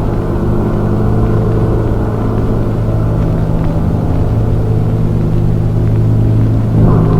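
A metal pipe clang sound effect, slowed, pitched down and distorted into a loud, steady low drone with a muffled top. The tone shifts and swells briefly near the end.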